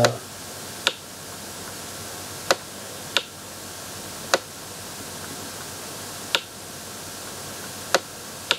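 Sharp single clicks, about seven of them spaced irregularly, made while an equation is handwritten on a digital whiteboard, over a steady faint hiss.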